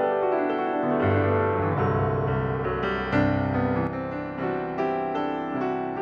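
Background piano music with sustained notes; deeper bass notes come in about a second in.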